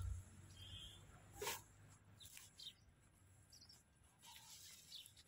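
Near silence, with a few faint rustles and light knocks as handfuls of fresh green fodder are gathered by hand into a plastic tub.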